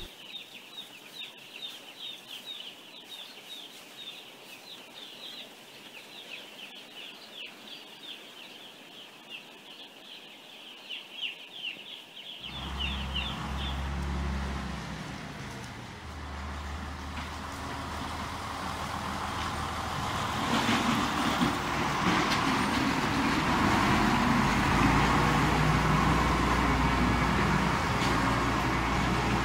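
Many chicks peeping, a fast stream of high, falling chirps. About twelve seconds in this cuts to a farm tractor's diesel engine running, growing louder in the second half.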